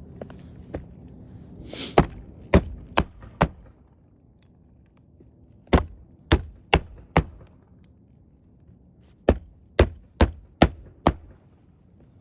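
Hammer driving nails into wooden roof shakes: three runs of sharp strikes, four, four and then five, about two a second with short pauses between.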